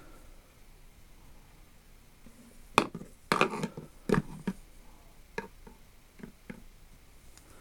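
Small hand tools being handled and set down: a quick run of sharp knocks and clinks about three seconds in, then a few lighter single taps.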